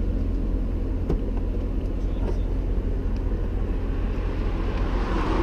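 Steady low rumble of an idling vehicle engine, with a few faint clicks, and a rustling noise that swells near the end.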